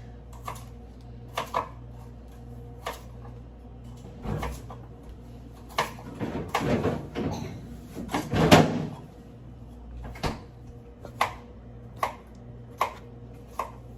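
Kitchen handling sounds: scattered sharp knocks and clicks, about one a second, with two louder, longer rushes of sound about six and a half and eight and a half seconds in.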